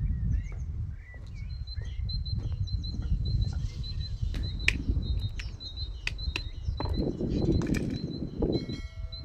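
A small songbird repeating a short, high two-note chirp about twice a second, over a steady low rumble, with a few light clicks and knocks scattered through.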